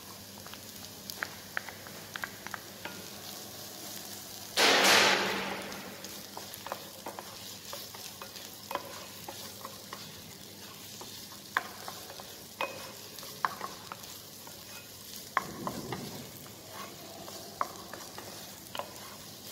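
Diced tomatoes sizzling in a small saucepan with sautéed onion, garlic and carrot, stirred with a wooden spatula that ticks and scrapes against the pan. A sudden loud hiss flares about four and a half seconds in and dies away over a second or so.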